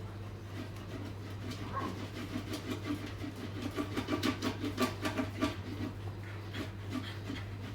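A dog panting quickly for a few seconds in the middle, among other dogs settling down, over a steady low hum.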